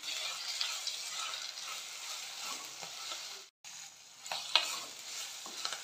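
Sliced onions, green chillies and fresh herbs sizzling in hot oil in a clay pot, stirred with a spatula that scrapes and taps against the pot. There are a few sharp taps shortly after the sound cuts out for a moment a little past halfway.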